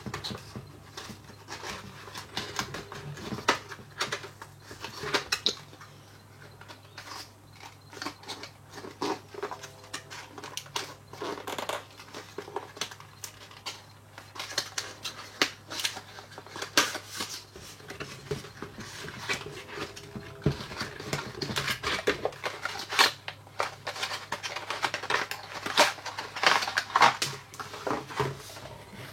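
Cardboard box and its packaging being cut open and handled by hand: irregular snips, scrapes and crinkles.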